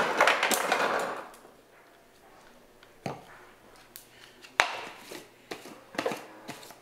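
A refrigerator door dispenser running into a plastic shaker bottle for about the first second, then a few scattered sharp knocks and clicks.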